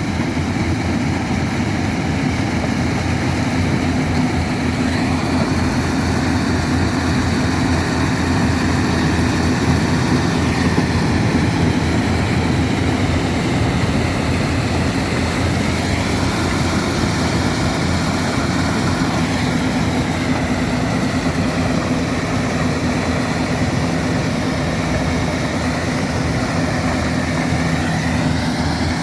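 Yanmar AW70V combine harvester running steadily: a loud, even diesel engine drone, with a faint higher whine that slides up and down in pitch now and then.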